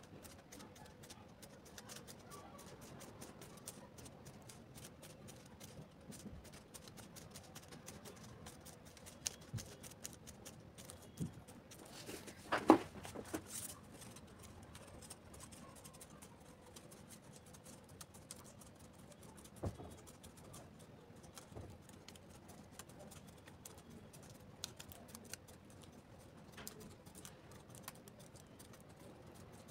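Faint scattered clicks, taps and scratching, typical of small objects being handled. There is one sharper clatter about halfway through and a dull thump a few seconds later.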